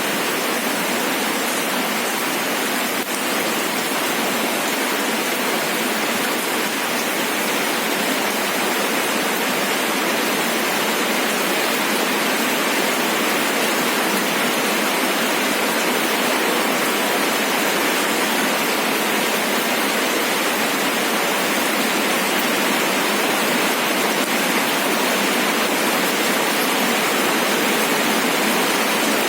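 Steady rain falling, an even, unbroken hiss of raindrops.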